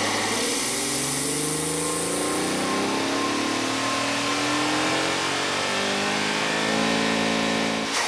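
The 2023+ Nissan Z's twin-turbo 3.0 L V6 revved in place, with loud intake noise from a Mishimoto cold-air intake run with its airbox lid off. The pitch climbs and falls several times, is held high near the end, and then drops back.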